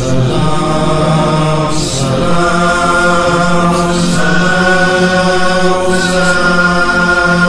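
Chanted vocal drone of long held notes, shifting pitch about every two seconds over a low pulsing rhythm: the introduction to a soz khwani salam recitation.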